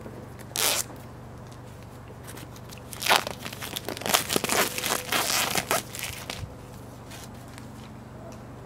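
Clear plastic shrink-wrap being peeled and torn off a phone box by hand. A short crinkle comes about half a second in, then a few seconds of tearing and crinkling from about three seconds in.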